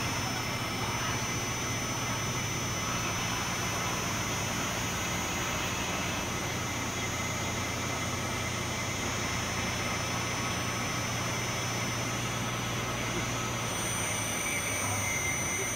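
CNC rotating-wire cutting machine running steadily, its spinning wire cutting through a mineral wool slab: an even mechanical hum and hiss with a few steady tones.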